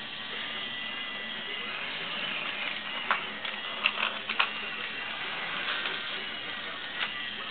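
Small electric motor of a battery-powered toy train whirring steadily as it runs along plastic track. A few sharp plastic clicks and knocks about three to four and a half seconds in, as a cat paws at the train.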